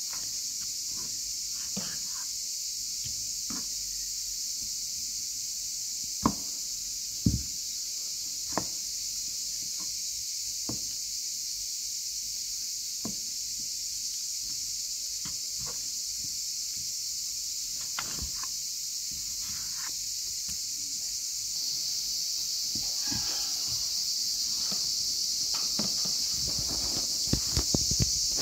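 A kitchen knife clicks and knocks on a plastic cutting board while raw chicken thighs are trimmed, with a few sharper knocks about six and seven seconds in and a run of small taps near the end. A steady high-pitched hiss runs underneath and gets louder in the last few seconds.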